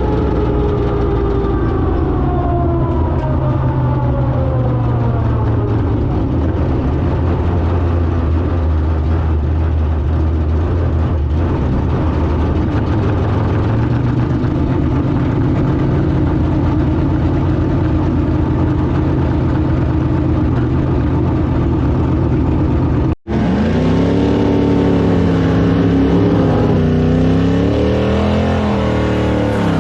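Drag car engine: its pitch falls over the first few seconds as it slows, then runs steadily at a low pitch. After a sudden cut about two-thirds of the way through, an engine is heard again, its pitch rising and falling as it is revved.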